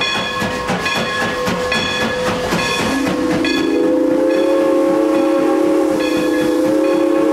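Steam locomotive No. 4466 setting off: its bell rings in even strokes, and about three seconds in the steam whistle opens into one long, steady blast that carries on over the bell.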